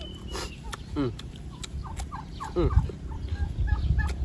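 Farmyard fowl calling: a few lower falling calls early on, then a quick run of short calls, several a second, through the second half, over a low rumble with a thump just under three seconds in.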